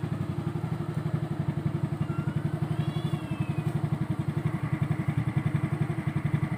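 A motorcycle engine idling steadily, a rapid even putter with no revving. A few faint high chirps sound over it about two to three seconds in.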